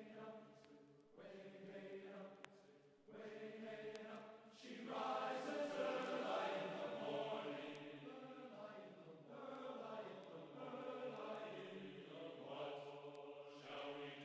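Quiet music of held, chant-like voices in harmony, the notes changing every second or so, growing louder about five seconds in.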